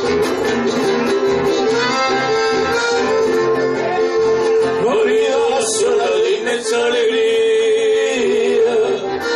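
Live chamamé dance music led by an accordion playing sustained, steady notes.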